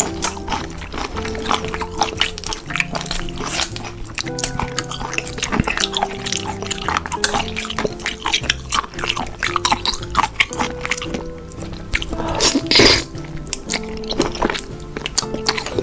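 Background music with held notes, over close wet chewing, biting and slurping sounds of someone eating. A louder, noisier burst comes about thirteen seconds in.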